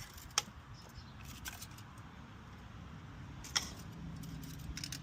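Engine oil dipstick being pulled out and pushed back into its tube to check the level after refilling. It gives a few short metallic clicks and taps, the two loudest about half a second in and three and a half seconds in.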